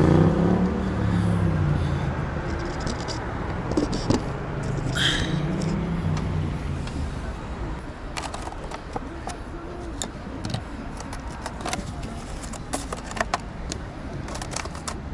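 Outdoor traffic noise, with a vehicle droning past twice, rising and falling. Over the second half come light clicks and rattles of small metal cable connectors and tools being handled.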